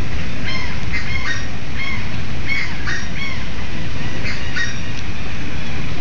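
A flock of flamingos calling: many short calls overlapping, several a second, over a steady low background noise.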